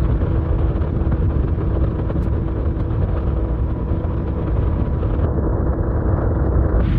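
A motor running steadily: a low rumble with a faint constant hum.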